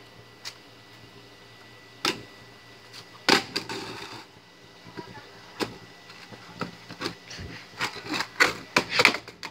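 Skateboard knocking and clattering on concrete steps and brick pavers: a few scattered single knocks, then a quick run of knocks and rolling clatter near the end as the board comes off a step.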